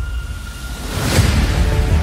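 Background music with a pulsing low beat. A whoosh sweeps through about a second in, and sustained chords come in after it.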